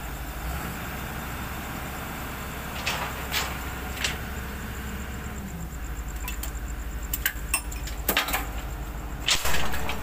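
An engine idling with a steady low throb, with scattered sharp knocks and clicks over it, the loudest near the end.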